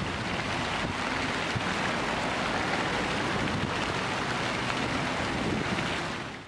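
A fountain's many thin water jets splashing into a shallow pool, a steady splashing that fades out at the very end.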